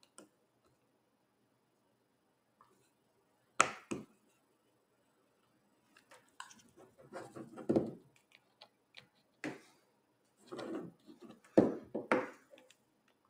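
Guitar pick prying the plastic front of an iPod (model A1136) away from its metal back case: sharp plastic clicks, with irregular scraping and clicking between them, loudest near the end.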